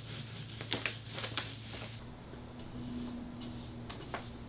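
Paint being applied to a wall: the soft rasping rub of a paint roller with a few light clicks, then after about two seconds the quieter strokes of a brush cutting in, over a faint low hum.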